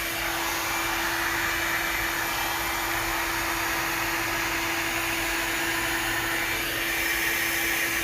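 Asani 4-in-1 hot-air dryer brush running on its low heat setting: a steady rush of blown air over one constant motor hum, with a slight change in the hiss near the end.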